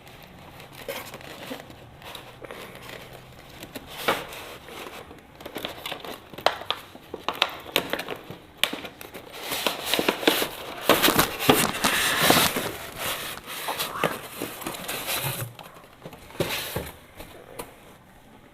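Toy packaging being handled and pulled apart as a remote-control car is lifted out of its box: crinkling and rustling with irregular crackles and clicks, busiest and loudest about ten to thirteen seconds in.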